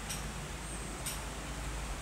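Sharp ticks about once a second over a low steady hum.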